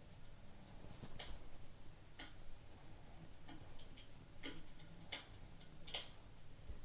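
Fireplace crackling: sharp, irregular pops roughly once a second over a faint low hum.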